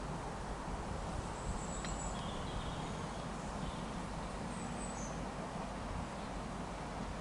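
Steady outdoor background noise with a low rumble and a few faint, short bird chirps, about two seconds in and again near five seconds.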